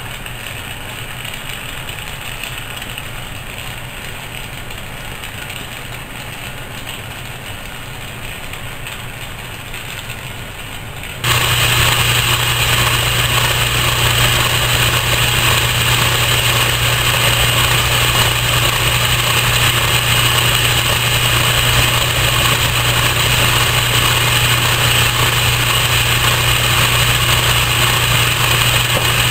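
A gas welding torch burning steadily with a hiss while its flame heats a small gear. About eleven seconds in, this gives way abruptly to an Atlas metal lathe running, a louder steady machine hum with a low drone.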